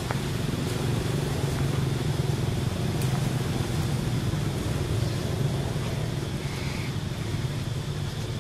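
A motor vehicle's engine running steadily, a continuous low hum.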